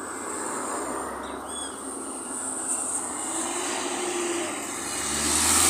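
Road traffic: a vehicle's engine drawing nearer along the road, getting louder toward the end, over a steady high-pitched whine.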